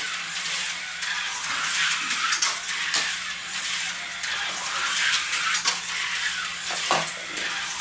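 TYCO HO-scale slot cars running laps on a plastic track: a steady high whirring hiss from their small electric motors, with a few sharp clicks and a steady low hum underneath.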